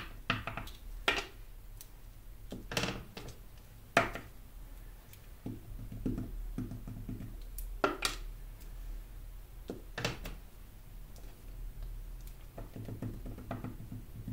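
Wood-mounted rubber stamp being dabbed on a small ink pad and pressed onto paper on a tabletop. The sound is a series of light knocks and sharp clicks spaced a second or more apart, with softer tapping between them.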